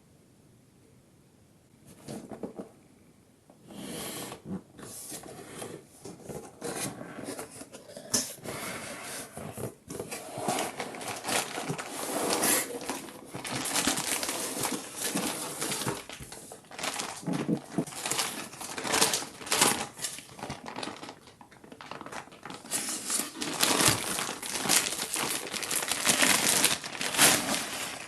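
Continuous crinkling and rustling from hands at work, starting about two seconds in and coming in uneven, crackly stretches that grow louder toward the middle and the end.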